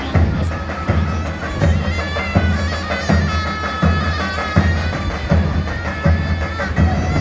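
Davul bass drum beating a repeating rhythm of deep strokes under a reedy wind instrument playing a sustained melody, in the traditional Turkish drum-and-shawm style.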